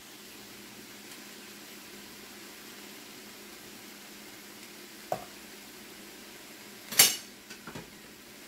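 Food sizzling steadily in a pan while a metal cooking utensil knocks against the cookware: one sharp knock about five seconds in, a loud clatter about seven seconds in, then a few lighter taps.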